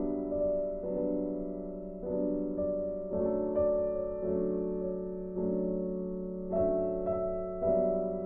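Background music: a piano playing slow chords, a new chord about every second.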